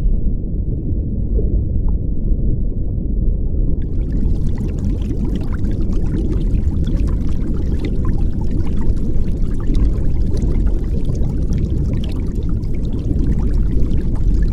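Muffled underwater noise picked up by an action camera in a waterproof housing: a steady low rumble, with faint crackling clicks joining in about four seconds in.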